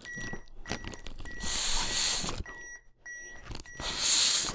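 Two rescue breaths blown into a CPR manikin, each a breathy rush of about a second. Under them, the AED trainer's CPR metronome beeps short and high about every 0.6 s to pace compressions.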